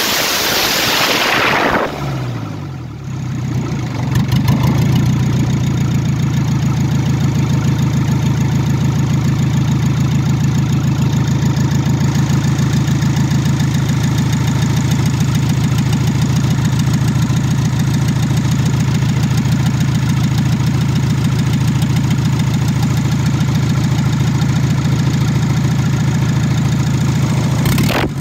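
Volkswagen TDI PD diesel engine running with its exhaust open in the engine bay. It revs loudly for about two seconds and the revs fall away, then from about four seconds in it idles steadily with a fast, even pulse.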